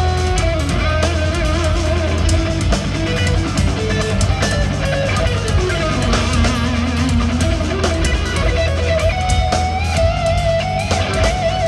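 Live instrumental progressive metal: an eight-string electric guitar plays a lead melody with vibrato and slides over low guitar notes and a drum kit.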